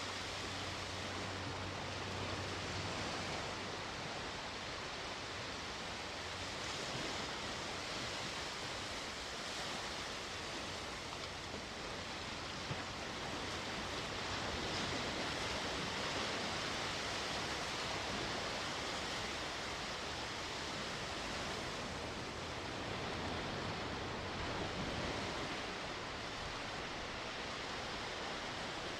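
Sea waves washing onto the shore: a steady wash of surf that swells and eases slowly.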